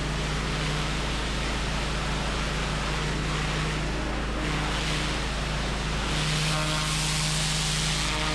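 Pressure washer running steadily: the machine's engine hum under the hiss of a turbo lance's spinning jet blasting moss and grime from paving joints.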